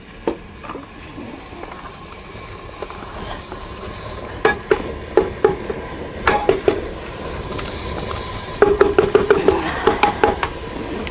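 Crushed onion sizzling in hot oil in an aluminium pressure cooker, the sizzle building steadily. Scattered knocks, then a quick run of ringing knocks near the end as the plastic chopper is shaken and tapped against the pot to empty the last of the onion.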